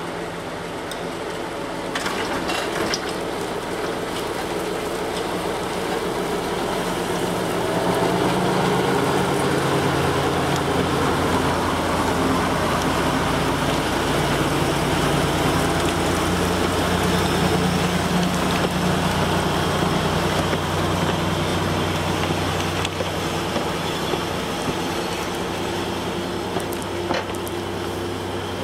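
TU6A narrow-gauge diesel locomotive hauling a train of flatcars past, its diesel engine running steadily. It gets louder as it comes alongside about eight seconds in, then eases off a little as it moves away.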